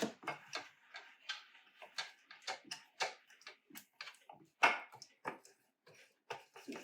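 Brush dabbing and tapping in the cups of a mini muffin pan while greasing it: a string of light, irregular clicks, several a second.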